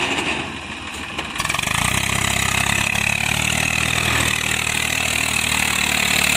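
Eicher 380 tractor's diesel engine pulling a loaded soil trolley: a steady low engine note that grows louder about a second and a half in as the tractor comes close.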